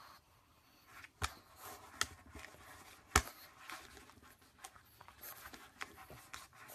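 Faint wet clicks and smacks of a pug licking and mouthing a small fruit on a tabletop. A handful of short sharp ticks come scattered through it, the loudest about three seconds in.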